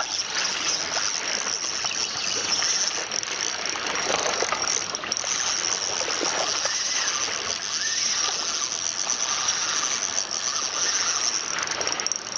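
Sea water washing and splashing against the shore in a steady hiss, with one sharp click right at the start.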